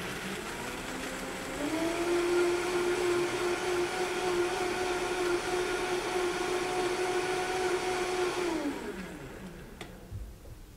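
Countertop blender blending cashews and water into a cashew cheese sauce. The motor speeds up about a second and a half in, runs steadily, then winds down and stops near the end.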